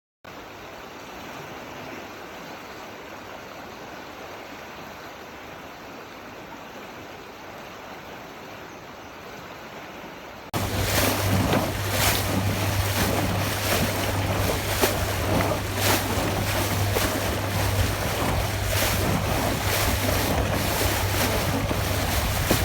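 Steady rush of running water, which about ten seconds in jumps suddenly to a much louder, fuller rush of a waterfall, with wind buffeting the microphone.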